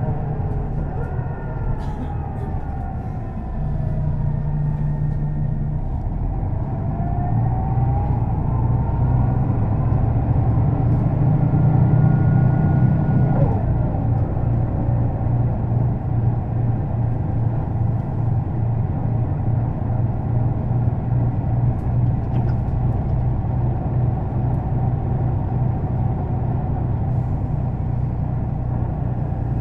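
Setra S 315 NF city bus's rear-mounted diesel engine idling steadily while the bus stands still. A fainter whine falls and then rises in pitch over the first dozen seconds as the engine gets somewhat louder, then the idle stays even.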